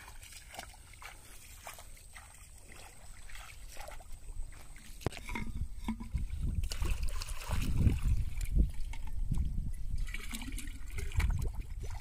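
Shallow water sloshing and splashing, stirred by hands and legs working among floating weeds. Sparse small drips and clicks at first, growing into louder, irregular sloshing from about halfway in.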